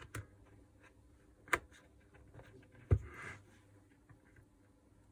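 Hands handling the open plastic housing of a Makita 4329 jigsaw while seating its motor and wiring: light handling noise with a sharp click about a second and a half in and a louder knock just before the three-second mark, followed by a brief rustle of wires.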